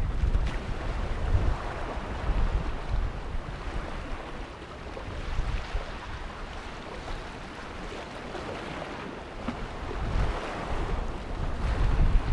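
Sea waves washing against the rocks, with gusts of wind buffeting the microphone as low rumbles near the start, about ten seconds in and again at the end.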